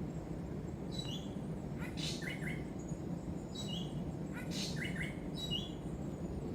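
An animal in the night jungle calling in short chirping phrases, the same pattern given twice about two and a half seconds apart, over a steady low rumble.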